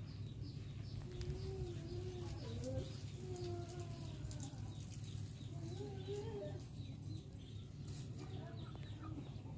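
A series of soft, wavering animal calls, short pitched notes that bend up and down, over a steady low hum.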